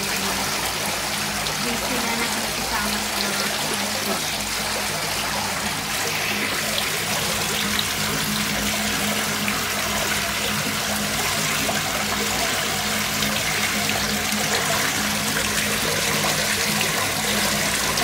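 Water running and bubbling into a fish tank, a steady rushing trickle over a constant low hum.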